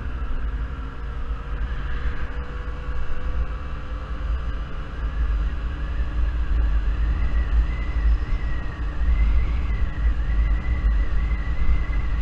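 Yamaha Zuma 50cc scooter's small engine running at cruising speed, a steady whine whose pitch climbs slowly as the scooter gathers speed, under heavy wind rumble on the microphone.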